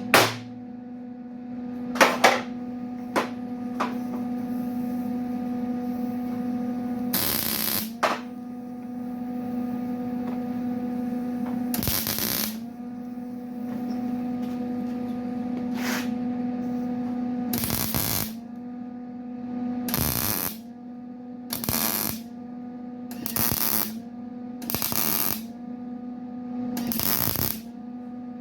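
Electric angle grinder running with a steady hum and grinding the tailgate's sheet metal in about nine short passes, its pitch sagging under load on each pass. A few sharp hammer or metal knocks come in the first few seconds.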